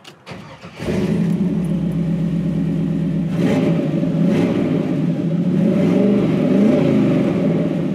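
1956 Ford pickup truck's V8 engine starting, catching about a second in, then idling with a few short blips of the throttle. It runs smoothly, sounding like a brand new Vette.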